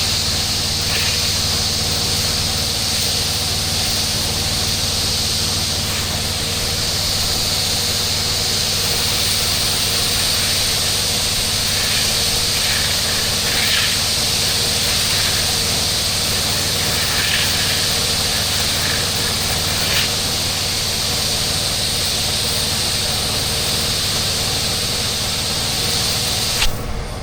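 Mo Flo soft wash system spraying treatment solution: a steady hiss of spray over the steady drone of the pump's engine. The spray shuts off suddenly near the end.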